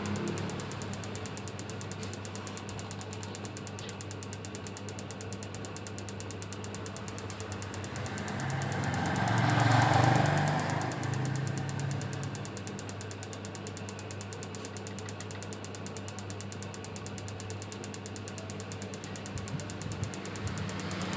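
A machine running steadily with a low hum and fast, even ticking. A louder whooshing swell builds to a peak about ten seconds in and fades again.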